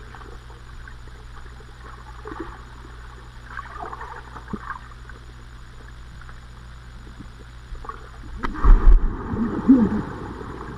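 Muffled underwater sound through a GoPro housing: a steady low hum with faint scattered splashes, then near the end a loud burst of churning, splashing water close to the camera from a swimmer kicking with a bodyboard.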